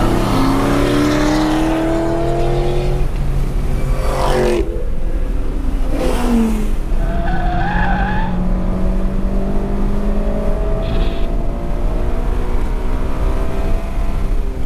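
Honda Civic Si's K20Z3 four-cylinder engine heard from inside the cabin at track speed. The revs climb for the first few seconds, then drop sharply twice, about four and six seconds in. The Falken RT615K tyres then squeal through a corner around eight seconds in, and briefly again near eleven seconds, as the engine pulls back up.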